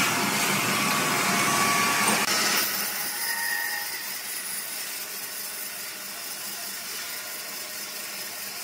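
Electric horizontal band sawmill running its band blade through a large log: a steady machine noise that drops to a softer, even hiss about two and a half seconds in.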